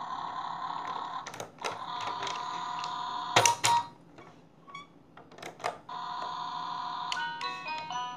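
Battery-powered baby steering-wheel toy playing a steady electronic tone that stops and restarts, broken by clicks of its plastic buttons and wheel being pressed. Near the end it starts a beeping electronic tune.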